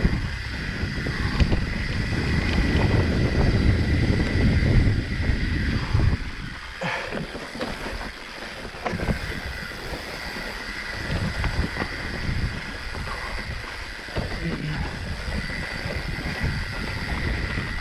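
Mountain bike riding along a trail: wind rumbling on the microphone for about six seconds, then a quieter stretch of tyre noise with frequent clicks and rattles from the bike.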